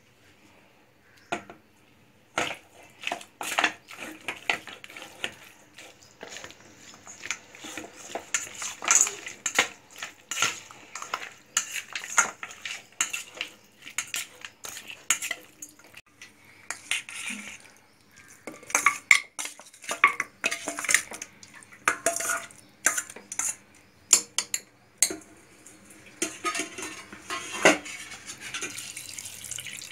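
Stainless-steel bowl and metal utensils clinking and clattering irregularly as raw mutton pieces are mixed and moved around in it.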